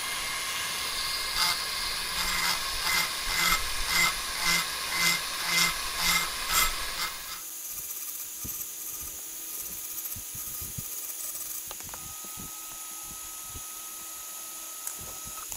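High-speed rotary tool smoothing the inside of the aluminium intake port of a Yamaha TMAX 500 cylinder head, pocket porting the bowl below the valve seat. It runs with a steady whine that swells and eases about twice a second as the bit is worked back and forth, then cuts off about seven seconds in, leaving a fainter steady hum with light ticks.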